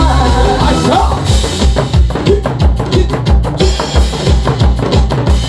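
Music with a fast, steady drum beat of bass drum and snare; the melody drops away about a second in, leaving mostly drums.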